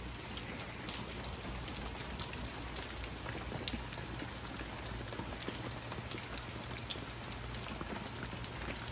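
Steady rain falling, with many single drops ticking close by: the early rain of an approaching hurricane, before the worst of the storm arrives.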